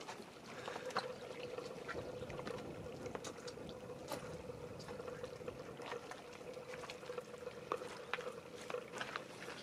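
Faint lapping of small waves on a pebble shore, with scattered clicks of footsteps on stones and a steady hum underneath.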